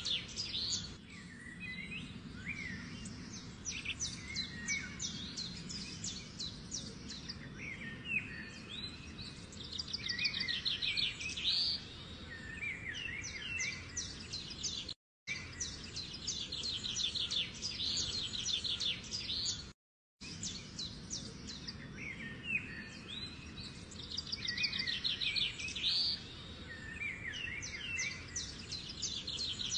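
Songbirds chirping and trilling, short calls and fast rattling trills repeating, over a low steady hum. The sound drops out briefly twice.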